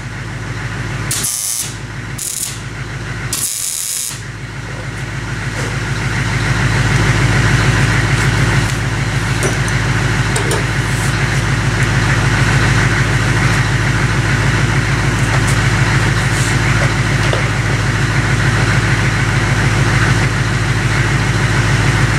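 A few short bursts of wire-feed welding crackle on a steel steering shaft in the first four seconds. From about four seconds in, a steady machine drone with a low hum takes over and keeps running.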